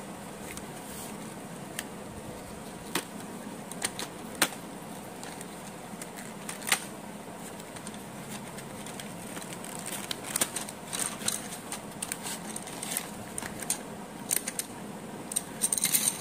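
Hands handling a DOMS A1 cardboard pencil box and its wooden pencils: scattered light clicks and taps, busier from about ten seconds in, ending in a quick cluster of clicks as the pencils are tipped out onto a pile of others. A steady hiss runs underneath.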